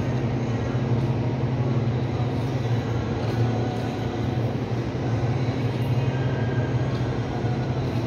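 Steady low hum with an even hiss above it, from the cold room's ceiling-mounted refrigeration unit running.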